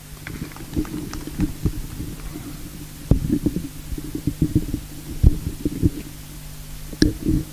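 Handling noise from a live microphone and its cable: irregular low thumps and knocks over a steady low hum.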